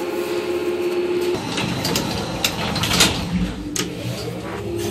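Passenger lift (elevator): a steady hum is broken about a second in by a few seconds of clattering and sharp clicks as the lift doors work. Near the end the hum returns with a deeper drone beneath it.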